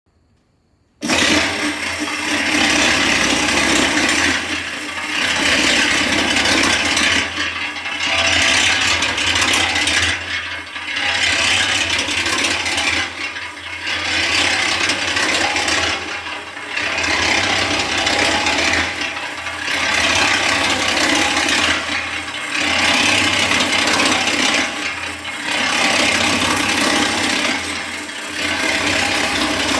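Small electric cement mixer switching on about a second in, then running. A steady motor hum sits under a grinding, rubbing noise from the turning drum and its ring-gear drive, which swells and fades about every three seconds with each turn of the drum.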